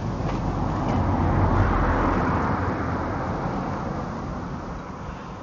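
A car passing by: its tyre and engine noise swells, is loudest about two seconds in, then fades away.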